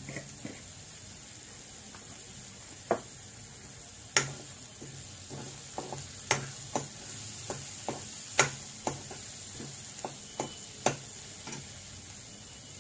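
A metal spoon stirring and scraping onions, green chillies and turmeric in a nonstick kadai, over a faint frying sizzle. Irregular sharp clicks of the spoon against the pan start about three seconds in and carry on until near the end.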